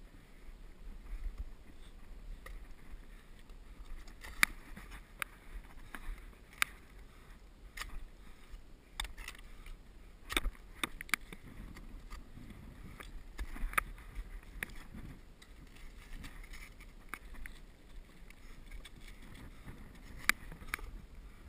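Ice axe and climbing gear knocking and scraping on snowy granite during a scramble: irregular sharp clicks of metal on rock, several of them loud, over soft scuffing of snow and rustling of clothing.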